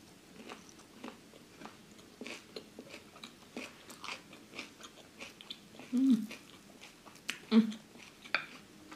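Close-miked chewing and biting of crunchy food, a run of short crisp crunches about two a second. Two brief hums from the eater come about six and seven and a half seconds in and are the loudest sounds.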